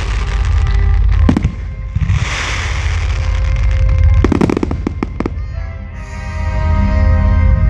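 Aerial fireworks: rushing hiss of shells and sparks broken by sharp bangs, with a quick run of bangs about four to five seconds in. Music with steady sustained notes comes up in the last couple of seconds.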